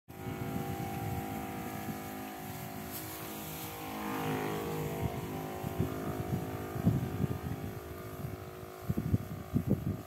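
Electric pump of a battery-powered knapsack sprayer humming steadily while it sprays. From about seven seconds in it grows fainter, and low thuds and rustling come and go.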